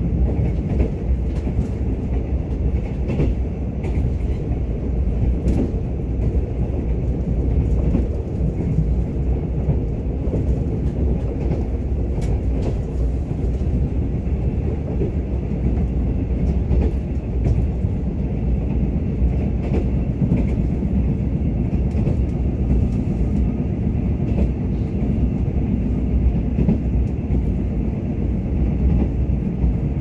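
Mugunghwa-ho passenger train running along the line: a steady low rumble of the wheels on the rails, with a few faint clicks.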